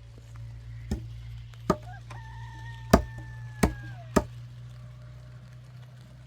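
Five sharp knocks, uneven and about half a second to a second apart, the third the loudest. A drawn-out call overlaps the middle knocks; it holds one pitch for about two seconds and drops at its end. A steady low hum runs underneath.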